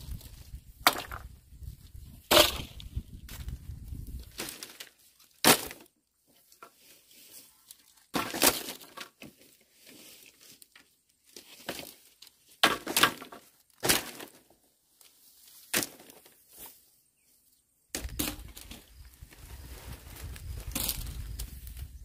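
Dry bamboo poles and split bamboo slats knocking and cracking as an old bamboo-and-thatch hut is pulled apart: a string of sharp, separate clatters a second or more apart.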